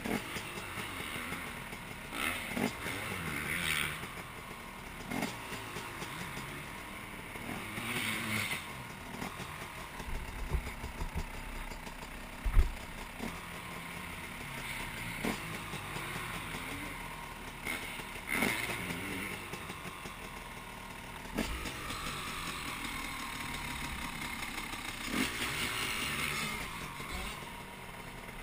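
Dirt bike engines running, revving up now and then, with scattered sharp knocks; the loudest knock comes about halfway through.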